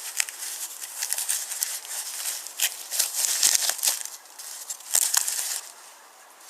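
Wrapping being crumpled and pulled off a wooden toy turntable: dense crinkling and crackling that stops near the end.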